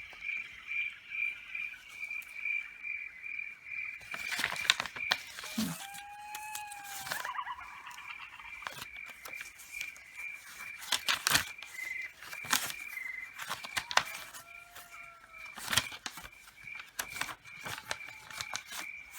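A recorded forest soundscape playing back: an insect chirping in steady pulses about four a second, with a few short bird calls over it. From about four seconds in, paper crackles and rustles as the pages are handled.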